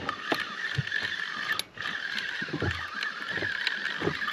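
Fishing reel being cranked to bring in a hooked fish: a steady gear whir with small clicks.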